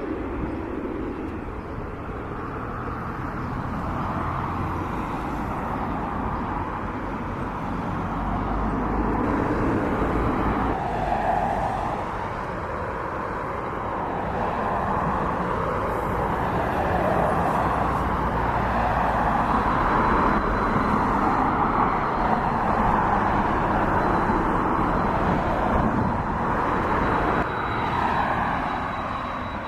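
Boeing 737-800's jet engines running as the airliner moves past: a continuous rushing roar that slowly builds and then eases off near the end. A thin, steady high whine joins about two-thirds of the way through.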